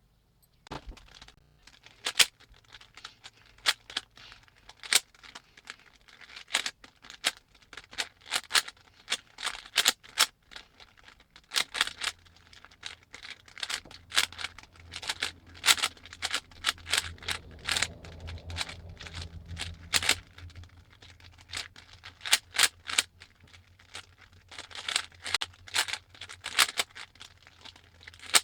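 Rubik's cube being turned rapidly during a speedsolve: a fast, irregular run of plastic clicks and clacks as the layers snap round, over a low steady hum.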